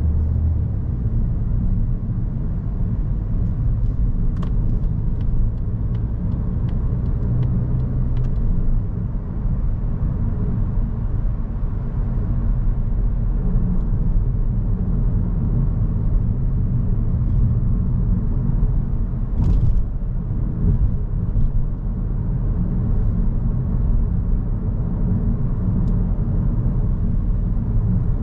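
2022 Mazda3 with its 2.0-litre four-cylinder petrol engine driving along a city road: a steady low rumble of engine and tyre noise, with a few scattered light clicks.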